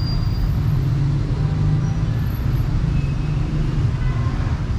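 Busy city street traffic: a steady low rumble of vehicle engines and tyres going by.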